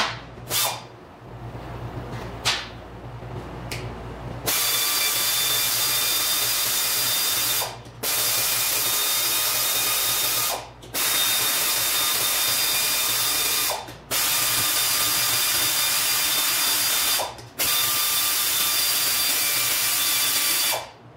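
A power ratchet running in five steady runs of about three seconds each, with short breaks between, as bolts are backed out of a manual transmission case. Before the first run there are a few sharp clicks.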